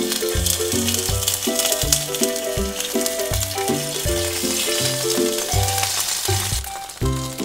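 Rice cake skewers sizzling as they start to pan-fry in hot oil, the hiss easing near the end, over background music with a steady beat.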